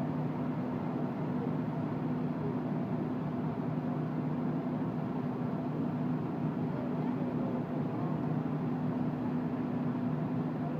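Fire engine's engine running at a steady, even drone.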